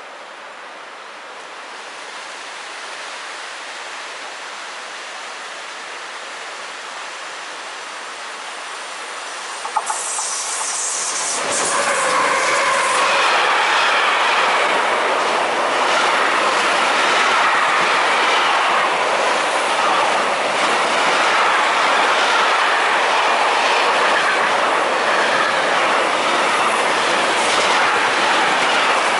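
Freight train hauled by two Siemens Vectron electric locomotives approaching and passing at speed. A growing rush as it nears, a few sharp knocks about ten seconds in as the locomotives go by, then the loud steady rumble of the wagons, their wheels knocking rhythmically on the rails.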